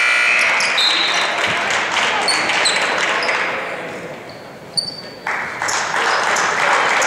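Basketball game in a school gym: voices from players and spectators, sneakers squeaking on the hardwood and a ball bouncing. The noise drops off around four seconds in, with a sharp knock near five seconds, then picks up again.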